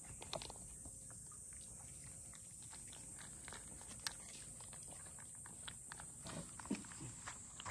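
Cats eating: a scatter of small crunches and clicks as they chew dry kibble and lap at wet food and cat milk, over a steady high hiss.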